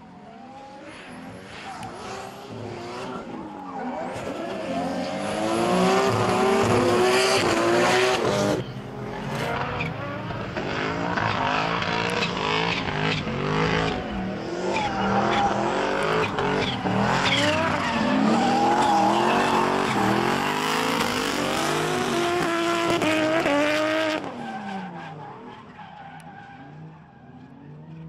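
Two drift cars in a tandem slide: engines revving hard with pitch rising and falling as the throttle is worked, over tyres squealing and skidding. It builds about four seconds in, dips briefly near eight seconds, and fades near the end.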